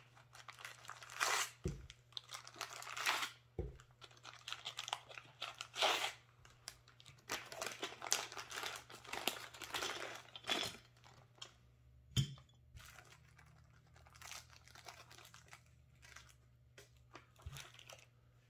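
Clear plastic parts bags crinkling and rustling as they are opened and emptied of propeller blades, a plastic prop hub and small screws, in irregular crackly spells with a few light knocks.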